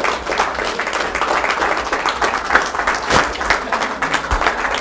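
Audience applauding, many people clapping at once at a steady level.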